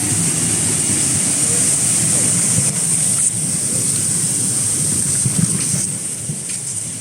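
Industrial air-bubble washing machine for cassava running: water churning and splashing over a low rumble, with a steady high hiss. The sound eases off a little about six seconds in.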